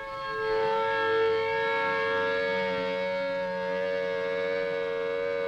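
Pole-mounted civil defense siren sounding, swelling up over the first second and then holding one steady tone: the public warning of a nuclear attack.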